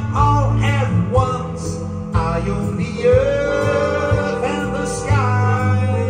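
A man singing live into a microphone over a backing track with guitar, holding long, wavering notes.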